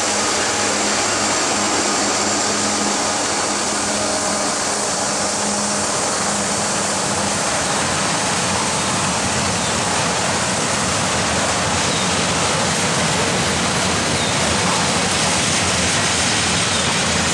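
Freight train rolling past close by: steady rumble and hiss of steel wheels on rail. A locomotive's engine drone is heard at the start and fades over the first several seconds as the freight cars follow.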